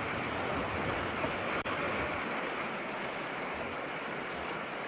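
Steady rushing outdoor background noise on a nest-cam microphone, with a brief dropout about a second and a half in.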